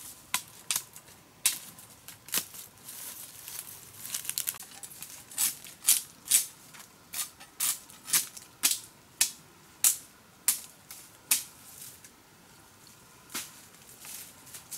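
Irregular sharp strikes and crunches, about one or two a second, of a long-handled hoe chopping into ground covered with dry bamboo leaves and stalks.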